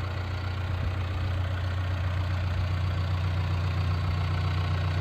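98 hp John Deere diesel engine of a backhoe idling steadily, running smoothly, with a low even hum.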